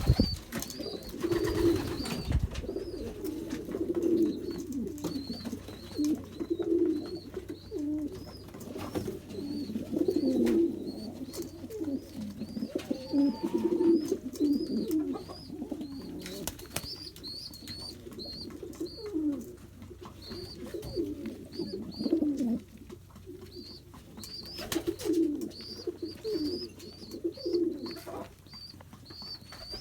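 Several pigeons cooing over and over, with a run of short high chirps from another bird and a few sharp clicks.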